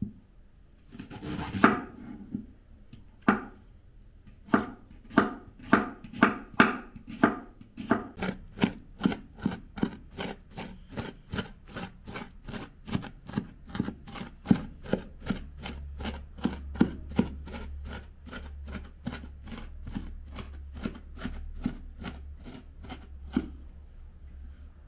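Large kitchen knife chopping onion on a round wooden cutting board: a long run of sharp knocks, about two a second at first, then about three a second, stopping near the end.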